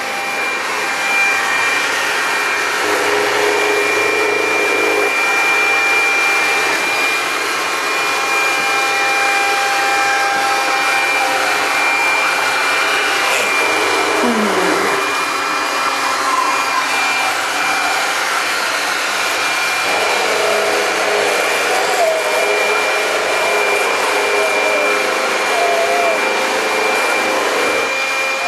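Robotic floor mopper running, a steady whirring drone like a small vacuum cleaner, with a thin steady high whine over it.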